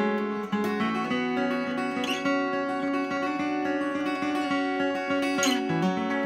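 Morris TF-80 steel-string acoustic guitar fingerpicked in a three-finger (Travis-style) pattern, a steady rolling accompaniment with a brighter, sharper stroke about two seconds in and again near the end.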